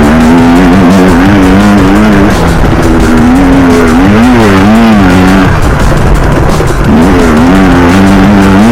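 Loud electronic music with a wobbling, growling bass line that steps between a few pitches.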